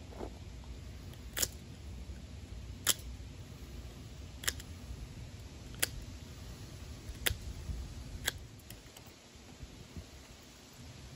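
Pocketknife blade carving into a wooden fireboard: six sharp clicks, one with each cutting stroke, about a second and a half apart, ending a little after the middle.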